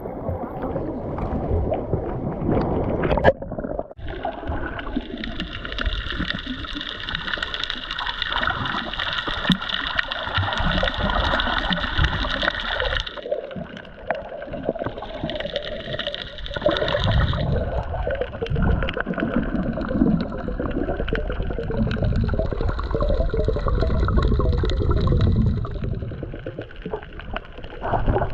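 Water gurgling and sloshing, muffled as from a camera under the surface, with a brief break about four seconds in.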